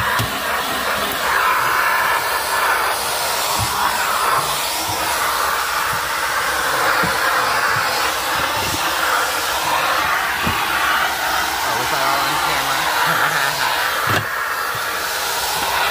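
Filter Queen Majestic vacuum cleaner running steadily, sucking fine dust through its hose and attachment tool, with a few soft knocks scattered through.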